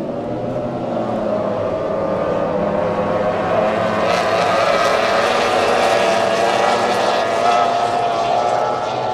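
Racing outboard engines of several Formula 1 tunnel-hull powerboats running at full throttle together, many overlapping engine tones held steady.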